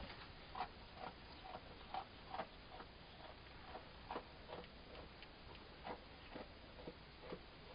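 Faint, irregular light ticks, one or two a second: the small hooves of pygmy goat kids shuffling on a straw-bedded wooden floor.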